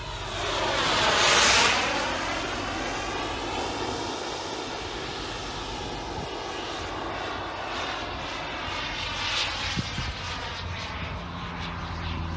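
Model jet turbine of an RC jet in flight, a steady jet rush that swells to its loudest as the plane sweeps past about a second and a half in. A second, smaller pass comes near the nine-second mark.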